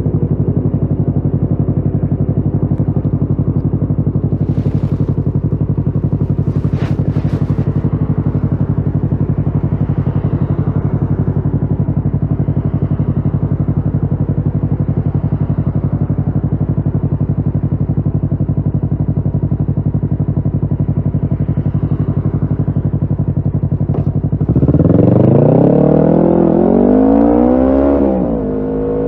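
Kawasaki Ninja 650's parallel-twin engine through a Shark SRC-4 full exhaust, holding a steady note for over twenty seconds. About 24 seconds in it gets louder and revs up, its pitch climbing and dropping back as the bike accelerates.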